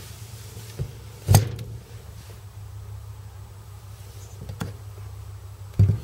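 A Honda CT110 aluminium cylinder head being handled and turned over on a wooden bench: a sharp knock about a second in and another near the end, with lighter taps between. A steady low hum runs underneath.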